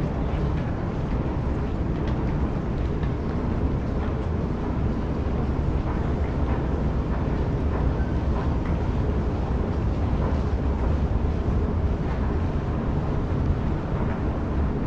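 Steady low rumble of an underground metro station's background noise, with faint scattered clicks over it.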